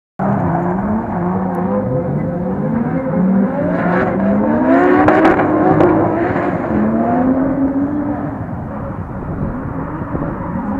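Two drift cars revving hard in a tandem drift: a Toyota Supra with a 1JZ straight-six and a Nissan Skyline R32 with an RB26 twin-turbo straight-six. Their engine notes rise and fall over and over with the throttle, with a few sharp cracks around the middle.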